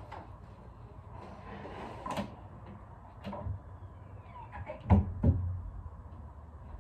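Scattered knocks and clicks of objects being handled in a room, the loudest a pair of thumps about five seconds in.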